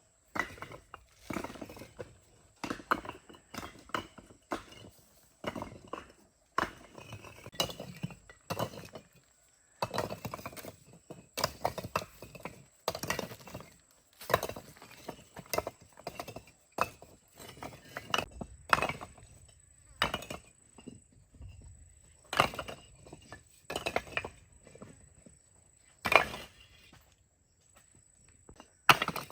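An irregular series of sharp clinks and knocks, about one or two a second, some with a short ring, as of hand tools striking hard material.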